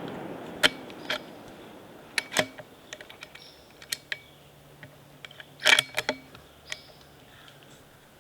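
Rifle being handled just after a shot: a series of sharp metallic clicks and clacks, the loudest cluster about halfway through. The shot's echo fades away at the start.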